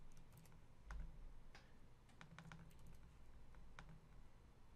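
Faint computer keyboard keystrokes and mouse clicks: scattered short, sharp ticks at uneven intervals, some in quick little clusters.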